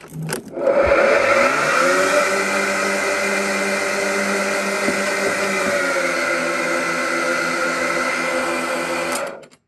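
Greenworks-built 40 V cordless lawn mower, with two electric blade motors, switched on with a click. The motors spin up, rising in pitch over about a second, then run steadily and normally until they cut off sharply near the end.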